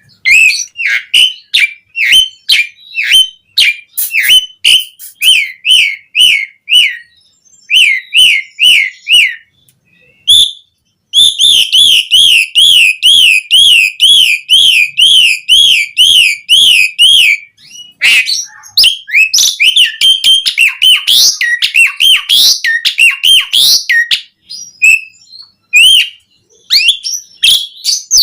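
Asian pied starling (jalak suren) singing loud whistled phrases. Repeated short notes give way, partway through, to a fast even run of rising-and-falling whistles, about two or three a second. This is followed by varied, jumbled chattering phrases.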